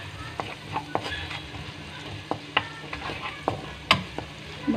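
Garlic-ginger paste sizzling in hot oil in a wok while a wooden spatula stirs and scrapes it, with scattered sharp knocks of the spatula against the pan, the loudest near the end.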